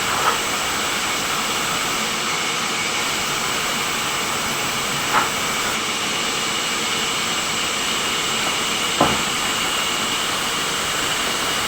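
Sawmill machinery running steadily with an even mechanical noise, broken by three brief knocks.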